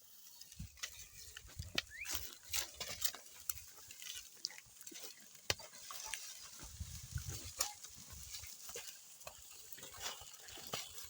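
An ox team ploughing a field: scattered knocks, clicks and scrapes from the animals and the plough, with a short low sound about seven seconds in.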